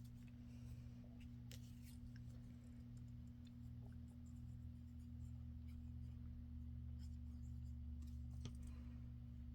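Faint rustling of paper and a few light taps and clicks as paper pieces are handled on a craft table, over a steady low electrical hum.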